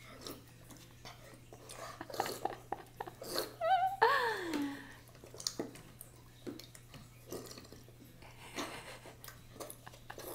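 A boy lapping and slurping water from a bowl with his mouth, the way a dog drinks: a run of small wet clicks and sips. About four seconds in there is a brief voice sound that wavers and then falls in pitch.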